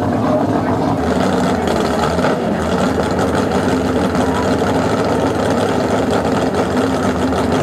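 Racing boat engine running steadily at idle through open exhaust pipes.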